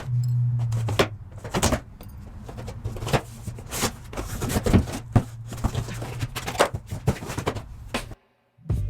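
A string of irregular knocks, clatters and rustles from objects being handled, over a steady low hum. All of it cuts off abruptly about eight seconds in.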